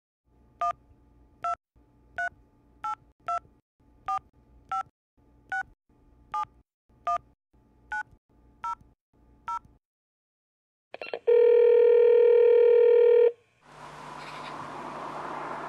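Telephone keypad tones: about a dozen short two-note dialing beeps, one key press at a time, less than a second apart, each pair of notes a little different. A few clicks follow, then one loud steady phone line tone for about two seconds, cut off sharply, and near the end a steady outdoor hiss comes in.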